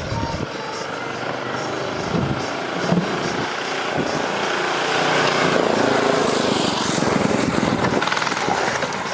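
A motor vehicle passing by, its steady noise swelling to a peak about six seconds in and then easing off.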